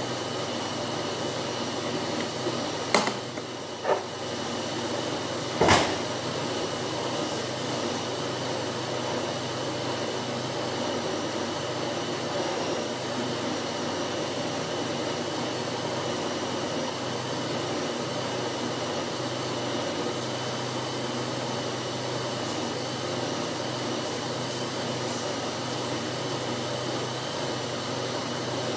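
Steady machine hum of a running kitchen appliance or fan. Three sharp knocks of kitchen items being handled come in the first six seconds.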